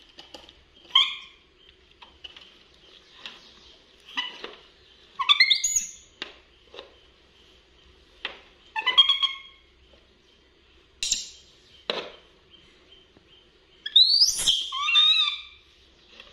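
Pet monkeys giving short, high chirping squeaks in four separate bursts a few seconds apart, the last one near the end the loudest and longest. A few sharp knocks fall between the calls.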